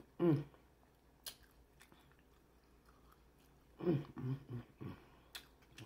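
Close-miked chewing of a crunchy hard-shell beef taco: a few sharp, crisp clicks over soft mouth sounds. Short murmured voice sounds come just after the start and again about four seconds in.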